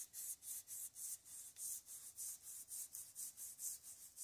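Steel valve stem end being rubbed back and forth on sandpaper by hand, a rhythmic rasp of about four strokes a second. The exhaust valve stem is being ground shorter and its end chamfer dressed to open up the valve-to-lifter clearance.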